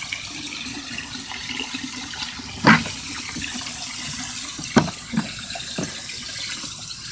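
Water from a garden hose nozzle pouring steadily into a plastic tub, with a few short sharp knocks, the loudest a little under three seconds in and three more between about five and six seconds.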